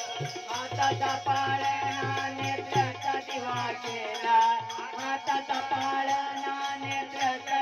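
Instrumental interlude of the song: a pitched melody instrument playing over a bass line and a steady, rhythmic percussion beat.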